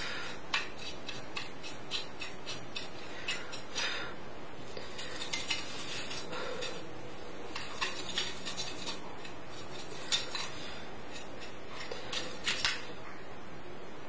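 Irregular light clicks and taps of a laptop's small plastic CPU fan and metal cooler being handled and worked over with a small paint brush, with a few sharper taps about ten and twelve seconds in.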